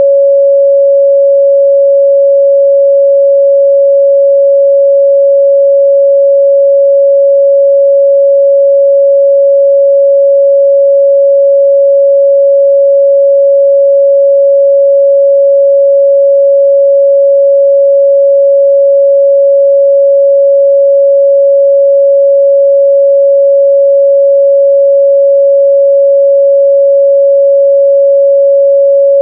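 A pure 557 Hz sine-wave test tone held steady and unbroken, a single midrange pitch with no overtones, used to check a speaker's or headphones' response.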